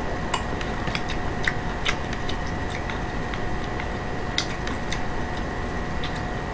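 Eating sounds: scattered small clicks from chewing and chopsticks, a few each second and unevenly spaced, over a steady hiss with a faint high whine.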